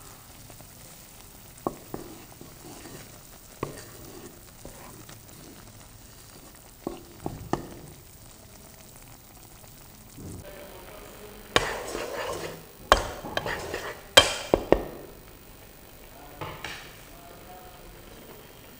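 Instant noodles simmering and sizzling in broth in a non-stick pot, with a few sharp clicks. About two-thirds in comes a busy stretch of scraping and several sharp knocks of metal on the pan.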